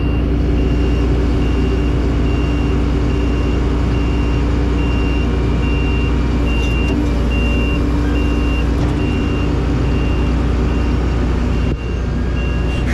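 A vehicle engine running steadily, with a high electronic warning beep repeating about twice a second throughout. The engine sound briefly dips near the end.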